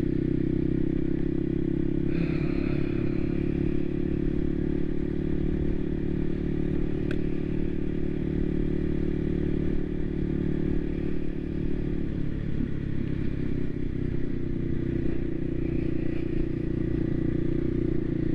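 Voge 300 Rally's single-cylinder engine running steadily under way, its note wavering briefly about two-thirds of the way through.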